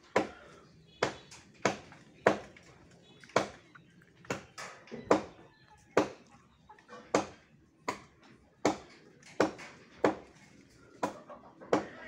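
Blade chopping into a tree branch that is being cut down: a steady series of sharp strikes, about one every second or less, some coming in quick pairs.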